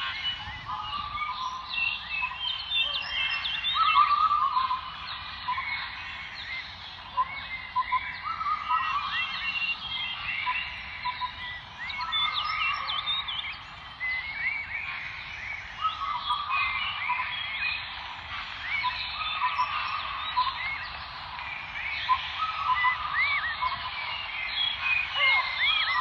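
A dense, continuous chorus of many overlapping chirps and short calls from a crowd of small animals calling together.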